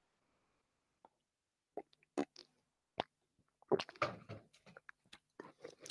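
A person taking a sip of water: a few faint, separate clicks and gulps, then a short cluster of small knocks and clicks past the middle.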